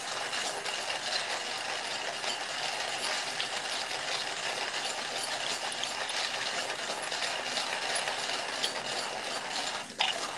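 Hand-cranked burr coffee grinder grinding coffee beans, a steady gritty crunching and crackle of the beans being crushed as the crank is turned fast.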